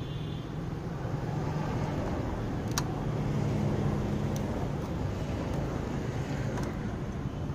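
Recorded engine sound played through the small built-in speaker of a diecast Mercedes G-Wagon 4x4 scale model: a steady idling engine that swells a little around the middle. A few small clicks from the model being handled.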